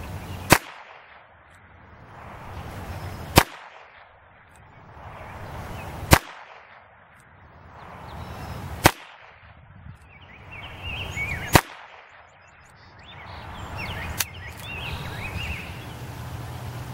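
Rossi Model 13 'Princess' .22 revolver fired single action with .22 Short rounds: five sharp shots about three seconds apart, then a much fainter crack about three seconds after the last.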